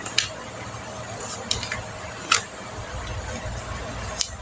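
Steady hum of an electric fan, with four light clicks spread through it, the loudest about halfway.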